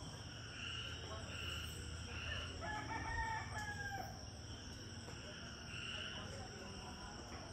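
A rooster crowing once, a single drawn-out crow about three seconds in, over a steady high chorus of insects.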